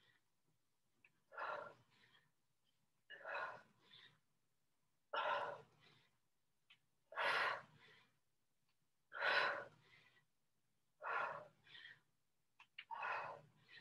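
A person breathing hard through repeated dumbbell squat presses: a strong exhale about every two seconds, seven in all, each followed by a short quicker breath.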